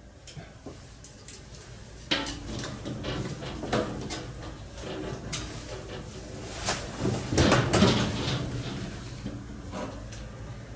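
Scattered knocks, clanks and rattles of metal parts being handled, loudest in a cluster about seven to eight seconds in, over a steady low hum.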